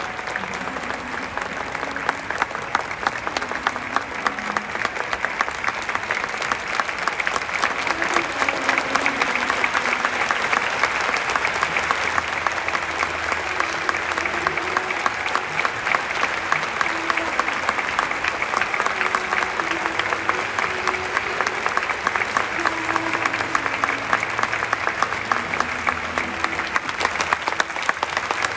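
Crowd in the stadium stands applauding steadily: a dense, continuous patter of hand claps.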